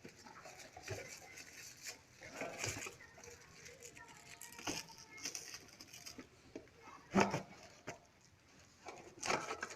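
Scattered rustles and clicks of a cardboard box and packaging being handled and opened, with a sharper knock about seven seconds in.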